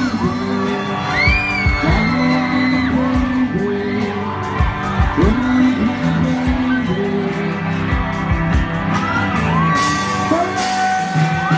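Live pop-rock band playing, with a lead singer over bass and drums, and noise bursts near the end.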